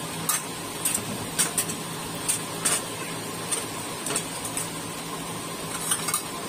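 Hot cooking oil crackling in a pan: irregular sharp pops, about one or two a second, over a steady background hum.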